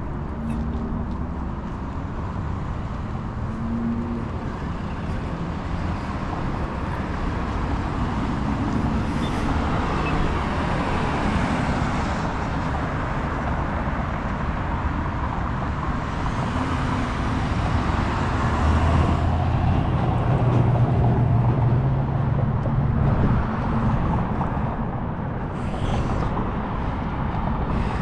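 Road traffic running steadily, swelling as a vehicle's engine passes close, loudest about twenty seconds in.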